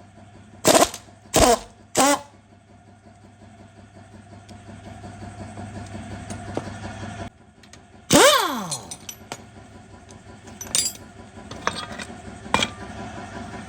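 Three short bursts from a power tool in the first two seconds, then a longer burst about eight seconds in that winds down in pitch. All of it sits over a steady low hum, with a few sharp metal clicks near the end, typical of work to remove a strut mount.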